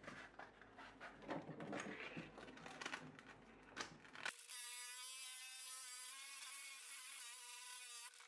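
Sandpaper rustling and clicking as it is handled. About four seconds in, a Makita cordless drill starts and its motor whines steadily at one pitch while it spins a wooden handle blank inside a wrap of sandpaper, then stops just before the end.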